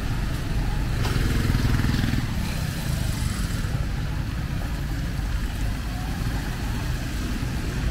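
Street traffic: a steady low rumble of vehicle engines, growing louder as a vehicle passes close by about a second in.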